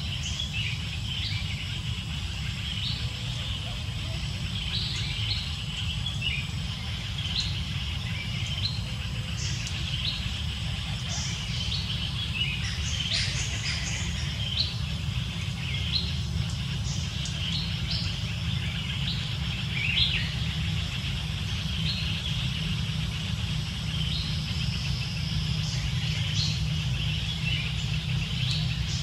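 Many short, high-pitched animal chirps and squeaks, scattered throughout, over a steady low rumble.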